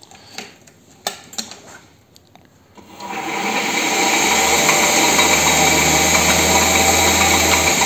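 A WM210V variable-speed bench lathe is switched on with a few clicks, then its motor and spindle run up about three seconds in and carry on at a loud, steady high speed, turning the three-jaw chuck at about 1100–1200 rpm, near its maximum.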